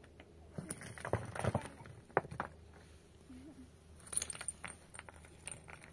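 Light clinks and knocks of small objects being handled, in two short clusters: one about a second in, another about four seconds in.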